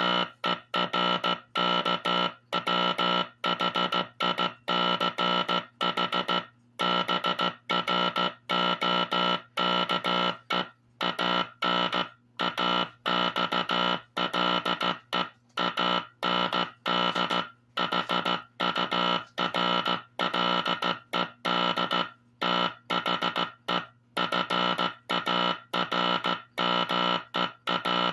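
Teleplex Morse code practice oscillator sounding a message in Morse code through its speaker: a steady, buzzy tube-oscillator tone keyed on and off in short dots and longer dashes, with short gaps between characters.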